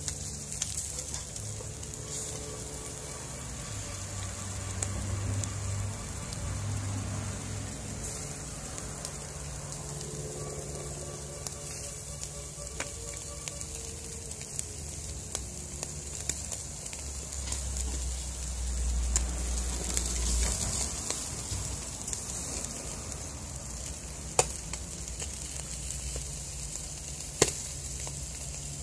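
Yellow croaker fish grilling in a wire basket over charcoal: a steady sizzle with scattered crackles and pops, two sharper pops near the end, and a brief low rumble partway through.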